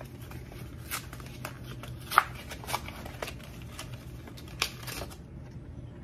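A small paper sleeve being picked and torn open by hand, then a paper slip pulled out: scattered crinkles and crackles, the sharpest about two seconds in. A faint steady hum runs underneath.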